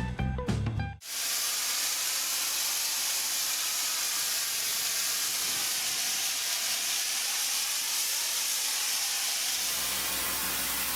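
Music stops about a second in, giving way to a steady, even hiss with no rhythm, strongest in the high range. A low hum joins under the hiss near the end.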